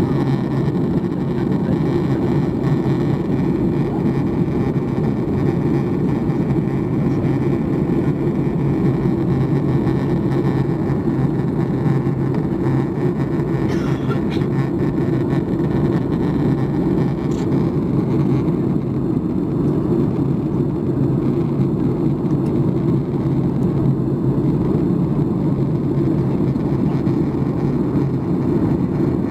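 Steady in-flight cabin roar of a Boeing 737 MAX 8: the CFM LEAP-1B turbofans and the airflow over the fuselage, a deep even rumble heard from a window seat.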